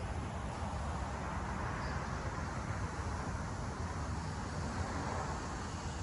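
Steady outdoor background noise with a low rumble, even throughout, with no distinct events.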